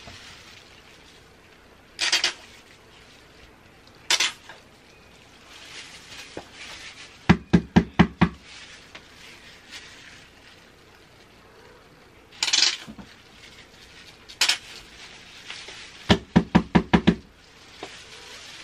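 A plastic hair-dye applicator bottle knocked against a sink in two quick runs of sharp taps, about six and then seven or eight, to get the last of the dye down to the nozzle. A few short hissing sounds come in between.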